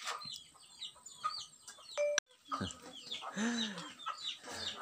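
Chickens calling: many short, high chirps repeat several times a second throughout, with a longer, lower call about three seconds in.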